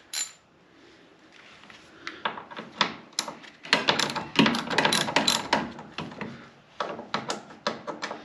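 Hand ratchet clicking in quick runs as a 10 mm radiator mounting bolt is turned out, thickest a few seconds in and then in shorter bursts.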